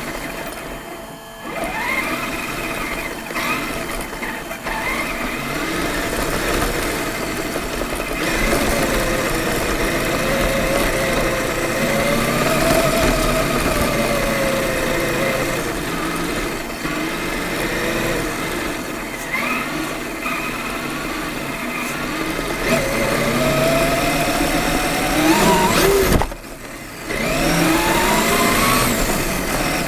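Traxxas E-Maxx electric RC monster truck's motors and gears whining, the pitch rising and falling with the throttle as it drives, heard from a camera mounted on the truck. Near the end the whine drops out for a moment, then winds up again with a sharp rise in pitch.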